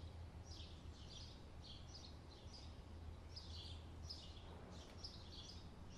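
Faint bird chirps, short high calls repeated a few times a second, over a low steady background hum.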